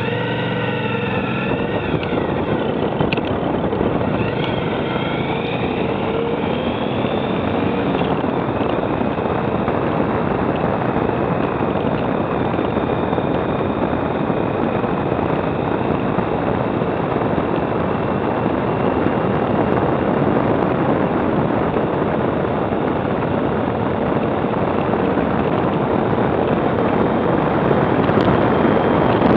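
Motorcycle engine running on the move, under a heavy rush of wind on the microphone. Its pitch rises and falls over the first several seconds as the speed changes, then holds steadier.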